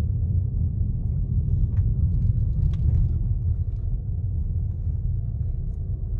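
Steady low road rumble inside a car's cabin while driving on a dirt road, with a few faint ticks and rattles.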